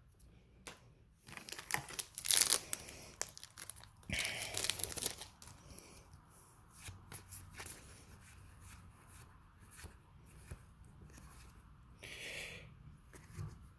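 A foil booster-pack wrapper being torn and crinkled, and trading cards being slid and flipped by hand: short rustling bursts about 2 and 4 seconds in and again near the end, with light card clicks between.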